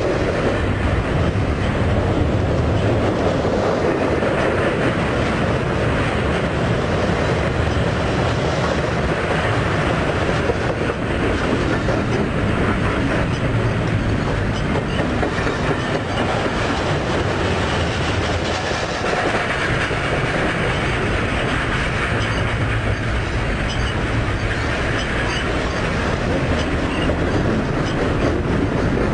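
Train cars rolling along the track, their wheels clacking steadily over the rails.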